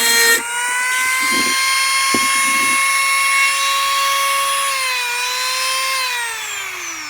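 Dremel rotary tool with a drill bit running at high speed in acrylic, a steady high whine. Its pitch dips briefly about five seconds in, then it is switched off and winds down with a falling whine near the end.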